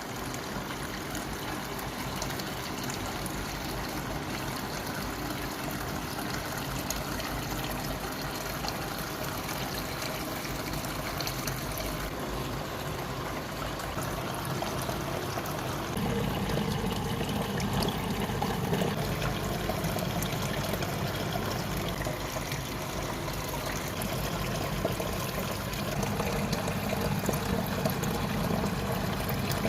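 Small paludarium waterfall trickling and splashing steadily into the tank's water, growing a little fuller and louder about halfway through.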